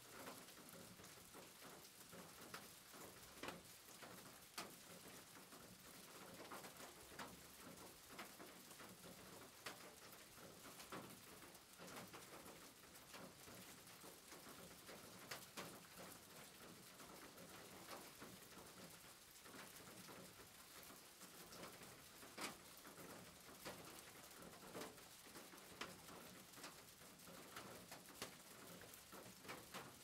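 Faint steady rain on a roof, with irregular drops ticking sharply here and there over an even hiss.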